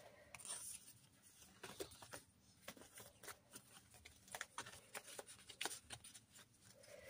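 Faint rustling and light ticks of paper cards and a tag being handled, shuffled and slid into a paper pocket, in short scattered bursts.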